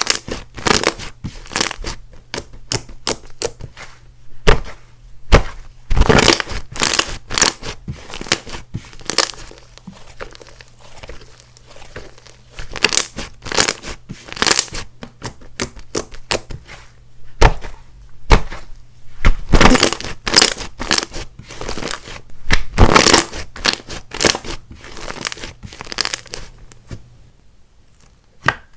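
Hands squishing, poking and stretching clay-mixed slime, giving an irregular run of sharp crackling pops and clicks that come in thicker clusters, then trail off near the end.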